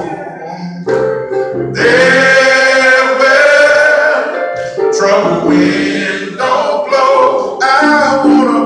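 Male gospel choir singing in harmony, phrase by phrase with short breaks between phrases.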